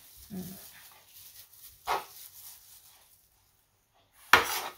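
Small dog, a Pomeranian, barking in a few short yaps, the loudest near the end.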